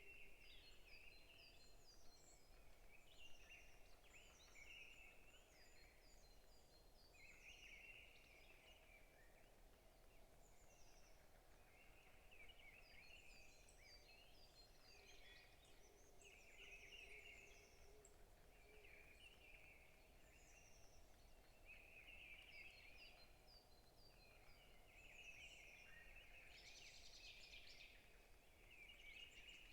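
Several forest birds chirping and singing, faint, with short repeated chirps and trills overlapping throughout over a low steady background hiss.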